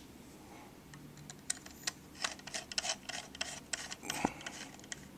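Small Phillips screwdriver driving spring-loaded screws into a laptop's hard drive bracket: a run of light, irregular clicks and ticks.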